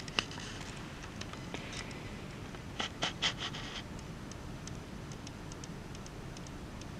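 Quiet room tone with a few scattered clicks and taps: one sharp click right at the start and a quick cluster of three or four about three seconds in.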